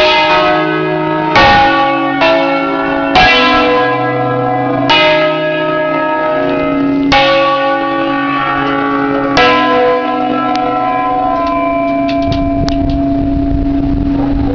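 A concerto of eight large bronze church bells in C, hung in the Ambrosian system, rung from inside the belfry. Strikes come irregularly, about one every one to two seconds, over a dense ringing hum. About ten seconds in the strikes stop and the bells' hum rings on, with a few light clicks.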